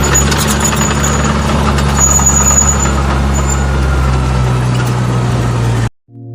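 RC model CAT D5G bulldozer running with a steady, engine-like drone and a faint high whine, with a few light clicks. It stops abruptly near the end.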